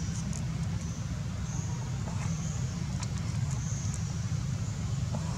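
Steady low rumble of outdoor background noise, with a faint high buzzing that comes and goes and a few light clicks.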